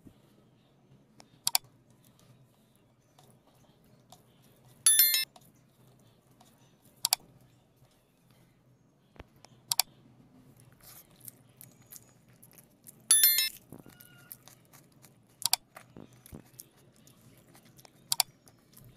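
Sound effects of a subscribe-button animation: five sharp mouse-style clicks every few seconds, and two short ringing notification-bell chimes, about five seconds in and again about thirteen seconds in.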